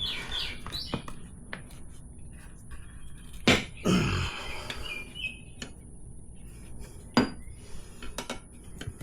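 Sharp metallic clinks and knocks of hand tools working on a motorcycle wheel during a tire change: a few scattered strikes, the loudest about three and a half and seven seconds in.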